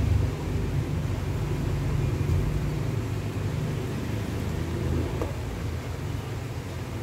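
Steady low rumble of an electric fan running.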